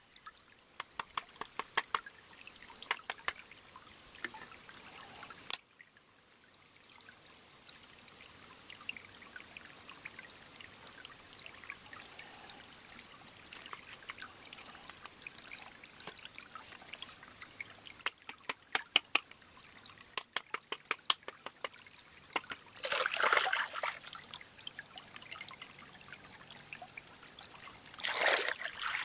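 Plastic toy parts and packaging being handled: clusters of sharp clicks and light rustling, with two louder crinkling swishes near the end.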